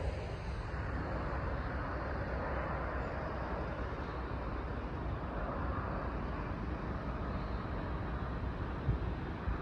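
Semi truck's engine drone and road noise, heard from inside the cab, cruising steadily at highway speed, with one brief knock near the end.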